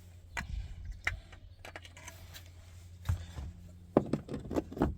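Plastic car interior trim being unclipped and handled by hand: scattered sharp clicks and light knocks, with a busier run of clicks near the end.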